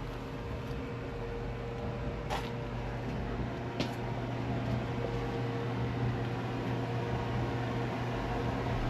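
Steady low mechanical hum, with two faint clicks a second and a half apart.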